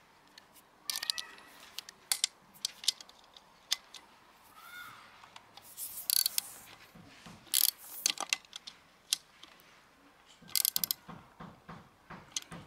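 Socket ratchet clicking in short runs, with scattered clicks and taps of the socket on metal, as the bolts of an outboard's water pump housing are tightened.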